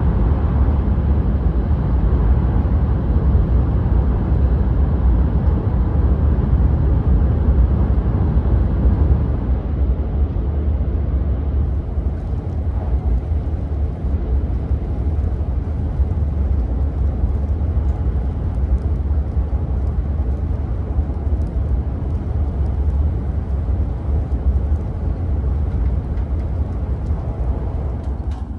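Steady low rumble of a Shinkansen bullet train running at speed, heard from inside the passenger cabin. The rumble thins a little about a third of the way through.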